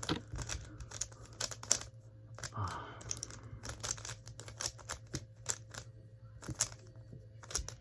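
Rubik's cube being turned quickly by hand: a rapid, uneven run of sharp plastic clicks and clacks as its layers snap round.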